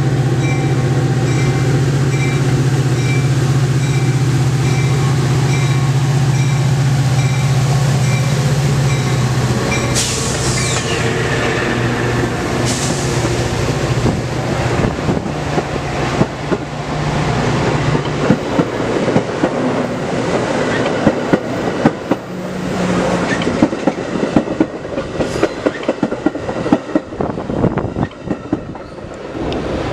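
Metra EMD F40PH diesel locomotive passing with its engine running steadily and its bell dinging at an even beat. About ten seconds in, a sharp wheel squeal slides down in pitch. Then the bilevel passenger cars roll by, their wheels clacking over the rail joints faster and thicker until the end of the train passes.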